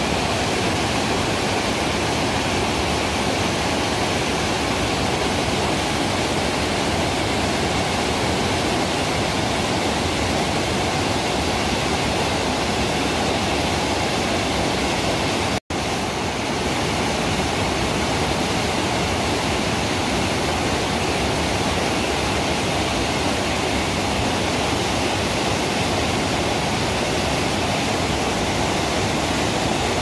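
Steady, full rush of a two-tier mountain waterfall pouring down a rock chute into a deep plunge pool. The sound drops out for an instant about halfway through, then carries on unchanged.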